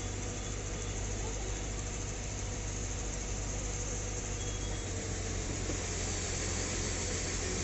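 A steady low mechanical drone, like an engine idling, under a constant hiss.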